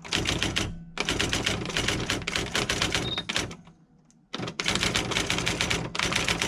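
Sears 10k40 electronic daisy wheel typewriter printing as it is typed on: rapid runs of daisy wheel strikes, a pause a little past halfway, then another run, over the low hum of its motor. A short high beep a little after three seconds in is its spell checker's warning.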